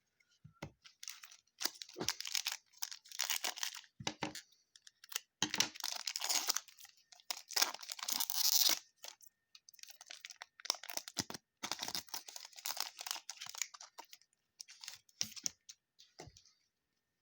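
A foil trading-card pack wrapper being torn open and crinkled in the hands, in a series of irregular tearing and rustling bursts with short pauses between them.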